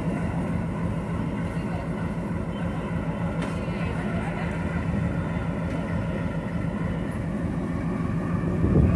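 Diesel locomotive engine running with a steady low drone. A short low rumble comes near the end.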